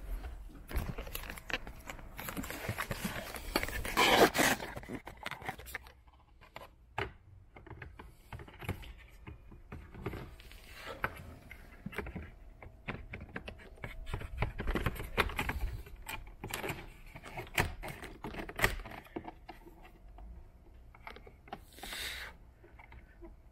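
Hands working a cable in behind plastic A-pillar trim and the rubber door seal: irregular scraping, rustling and clicking of plastic and rubber, with a louder scraping stretch about four seconds in.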